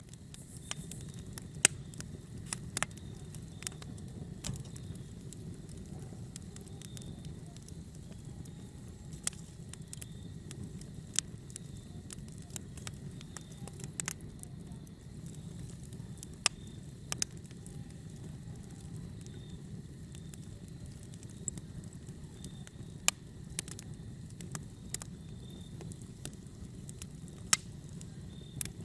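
Wood fire in a fireplace burning with a steady low rumble, and sharp irregular crackles and pops scattered throughout.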